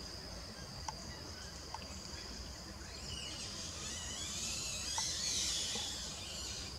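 Forest ambience: a steady, high insect buzz for the first few seconds, then a busy twittering of high bird calls from about three seconds in, with a few faint ticks.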